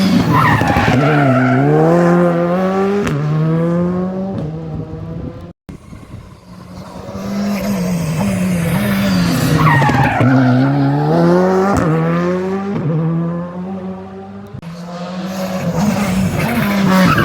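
Rally cars driven hard along a special stage, engine pitch climbing and dropping repeatedly through gear changes and lifts, one car after another passing close and fading. The sound cuts out briefly about five and a half seconds in.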